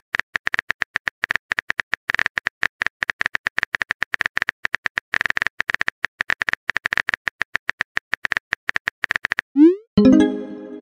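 Simulated phone-keyboard typing clicks, a rapid run of key taps as a text message is typed. Near the end comes a quick rising swoosh and a short pitched chime: the app's message-sent sound.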